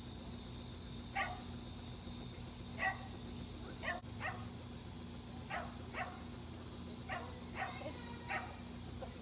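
Dog barking: about ten short barks, unevenly spaced, over a steady background hiss.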